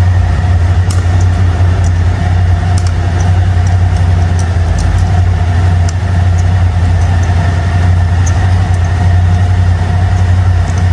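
Steady low mechanical hum of a running machine, with scattered light clicks over it.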